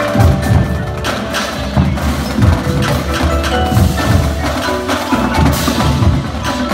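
Indoor percussion ensemble playing: marimbas and other mallet keyboards ringing over sharp snare and tenor strokes and low bass-drum hits from the marching battery.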